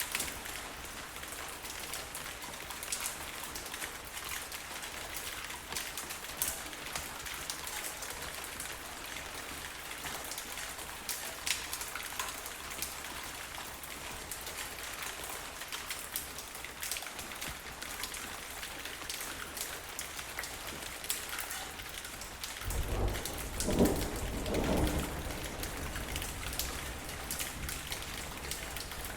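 Steady rain falling on a hard surface, an even hiss with individual drops clicking. A low rumble lasting a few seconds swells up about three-quarters of the way through.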